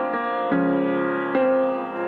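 Instrumental intro of a song: sustained keyboard chords with a plucked-string tone, changing chord about every second.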